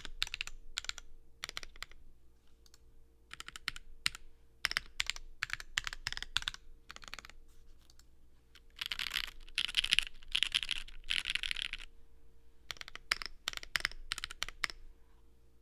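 Typing on a stacked acrylic Alice-layout mechanical keyboard with a POM plate, Gateron Pure Berry switches and GMK Minimal keycaps. Keystrokes come in quick flurries with short pauses, the densest flurries in the middle, and the typing stops shortly before the end.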